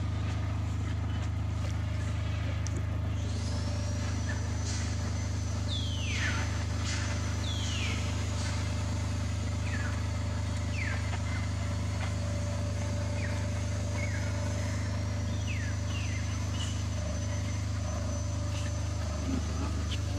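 Steady low hum of an idling engine. About three seconds in a high steady whine joins it, and a series of short falling chirps comes and goes.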